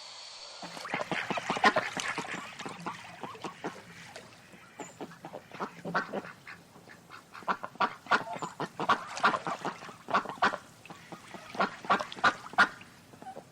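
Waterfowl calling: many short, rapid calls in irregular bursts, some louder and clustered together.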